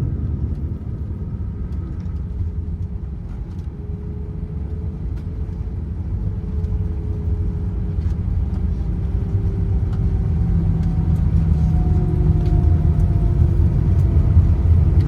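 Airbus A319 jet running: a steady low rumble of engines and airflow, with faint engine tones slowly drifting in pitch, growing louder over the last few seconds.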